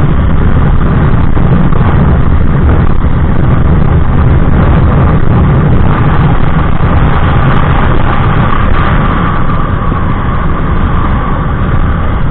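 Honda Click 125i scooter's single-cylinder four-stroke engine and aftermarket EXOS X6 exhaust running steadily at top speed, under heavy wind rush on the microphone.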